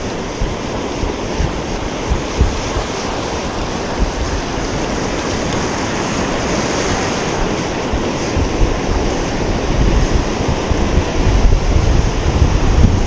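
Ocean surf washing onto the beach, with wind buffeting the microphone; the gusts get heavier and louder in the second half.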